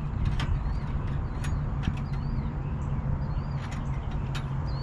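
Steady low rumble of an idling engine, with short bird chirps repeating about once a second over it and a few sharp clicks.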